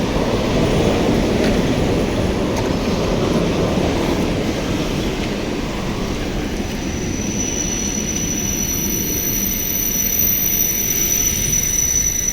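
Electric commuter train running on the rails with a steady rumble. About halfway through, a steady high-pitched squeal joins in and holds.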